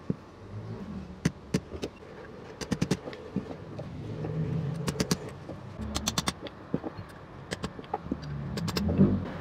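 Clusters of sharp metallic taps, a chisel being struck to drive the old lower inner bearing race off a Honda ADV 160 steering stem a little at a time.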